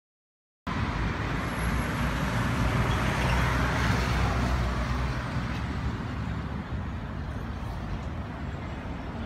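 Dead silence for the first half-second, then steady street traffic noise with a low rumble. A vehicle goes by, loudest about three to four seconds in.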